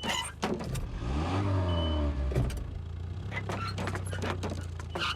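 A vehicle engine running steadily, revving up and back down about a second in, with scattered clicks and knocks later.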